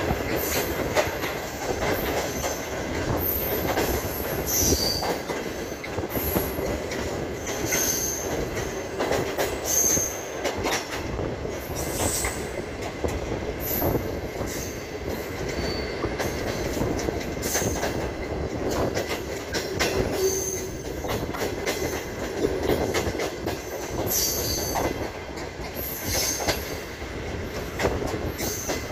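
Pakistan Railways Tezgam Express passenger coaches running over the track: the wheels rumble and clatter over rail joints, with short high-pitched flange squeals every few seconds.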